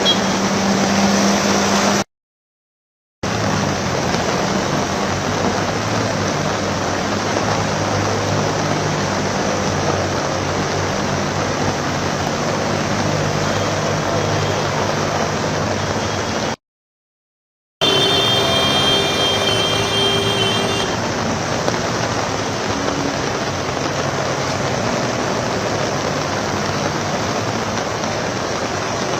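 Traffic in heavy rain on a waterlogged road: a steady hiss of rain and tyres through standing water, with vehicle engines running underneath. The sound cuts out completely twice, briefly, and a steady pitched tone sounds for about three seconds about two-thirds of the way through.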